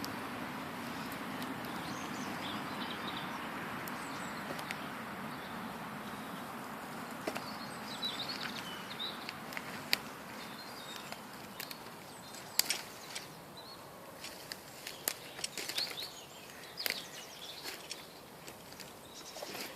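Birds chirping on and off over a steady outdoor rush. Scattered sharp clicks and crackles become more frequent in the second half.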